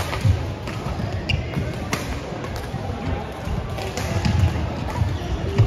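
A badminton singles rally in a large hall: several sharp cracks of rackets striking the shuttlecock and heavy footfalls thudding on the court, over chatter from surrounding courts.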